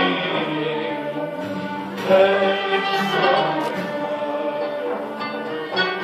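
Live Turkish art music in makam Hicaz: a large ensemble of traditional instruments and a choir playing and singing together.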